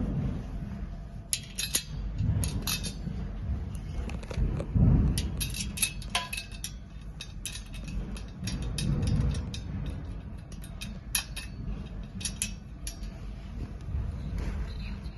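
Scattered sharp metallic clicks and clinks from screws, nuts and the iron frame bars being handled and fastened by hand, over low rumbling handling noise.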